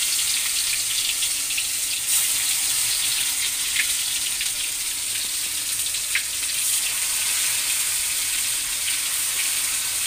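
Stuffed bitter gourds sizzling as they go into hot oil in a kadhai: a steady sizzle with scattered crackles and pops.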